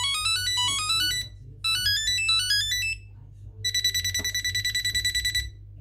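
Electronic ringtones for a Bluetooth tracker tag being previewed one after another: a fast rising run of beeping notes played twice, then a single high-pitched beep pulsing rapidly for nearly two seconds.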